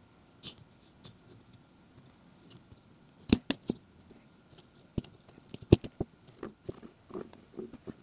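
Hands stripping the cover and padding off an old bike saddle: small scrapes and rustles, with a few sharp knocks about three seconds in and again around five to six seconds in, then a run of light clicking and scraping.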